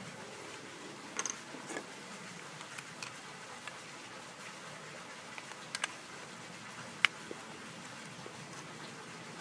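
Scattered small hard-plastic clicks and taps as a broken smoke detector body is handled and fitted back together, with one sharper click about seven seconds in, over a faint steady room hiss.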